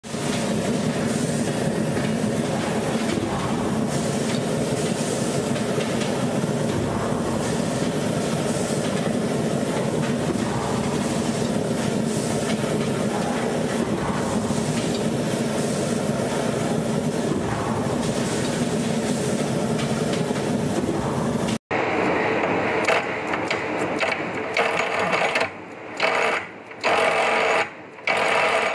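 Steady industrial machine noise with a low hum from a hot forging press working red-hot metal in a die. About three-quarters of the way through it cuts to a different, higher-pitched noise from a geared metalworking machine, which starts and stops several times in short runs.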